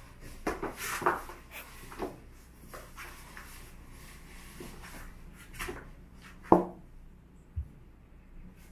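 Two cats scuffling and rolling on a flattened cardboard box: irregular scrapes and soft thumps of paws and bodies against the cardboard, with one sharper knock about two-thirds of the way through.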